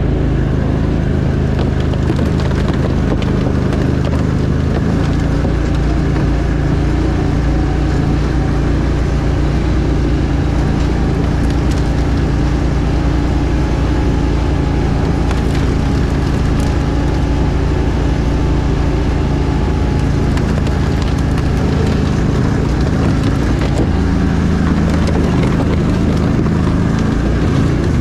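Argo amphibious ATV's engine running steadily while under way, heard from the driver's seat, with scattered small clicks and rattles over it.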